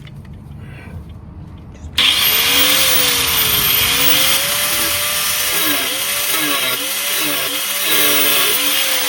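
Angle grinder starting up suddenly about two seconds in and cutting through the seized stud of a rear stabilizer link, its motor pitch dipping and recovering as it bites into the metal.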